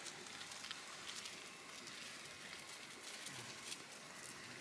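Faint outdoor background: a steady hiss with scattered light ticks and rustles.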